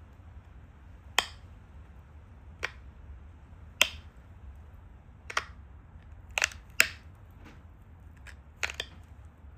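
Sharp clicks of flakes snapping off a stone Dalton point under a pressure flaker, about nine at irregular spacing, with a few in quick pairs near the end.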